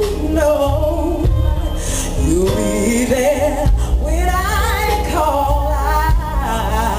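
Live gospel ballad: a female lead singer holds long notes with wide vibrato and gliding runs over a band with bass and keyboards.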